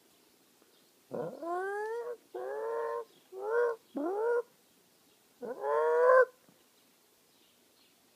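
An animal calling in a run of five drawn-out cries, each one rising in pitch.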